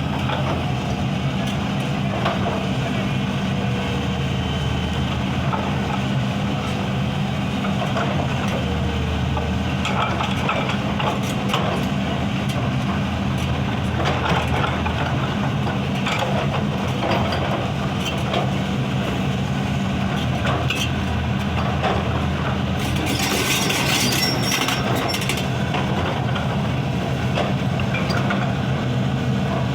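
Excavator diesel engine running steadily while stone cracks and crunches under its hydraulic rock breaker, with irregular sharp knocks and a harsher, hissing burst about three-quarters of the way through.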